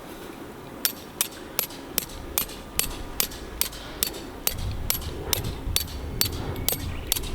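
A regular series of sharp mechanical clicks, about two and a half a second, starting about a second in, with a low rumble joining about halfway through.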